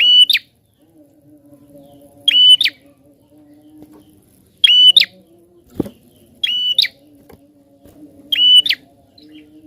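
Prinia (prenjak) calling loudly: five short, sharp, high-pitched calls about two seconds apart. A faint steady low hum runs underneath, and there is a brief thump a little before six seconds in.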